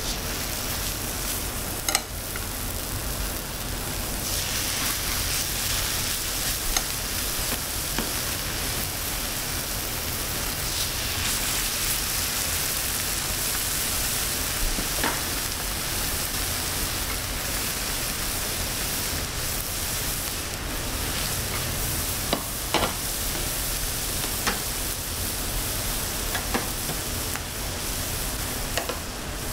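Pork belly (samgyeopsal) and aged kimchi sizzling on a hot griddle plate. The sizzle swells about four seconds in and again around eleven seconds as more raw strips go down, with occasional sharp clicks of metal tongs on the plate.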